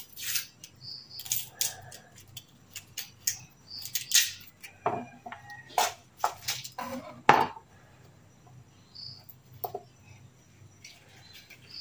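Kitchen knife cutting garlic cloves on a plastic cutting board: irregular clicks and knocks of the blade and cloves against the board, busiest in the middle.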